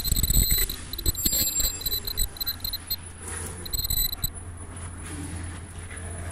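An automatic N95 mask-making machine running, with quick mechanical rattling and clicking over a steady low hum. Several high-pitched whining tones cut out about two-thirds of the way through, and the sound is quieter after that.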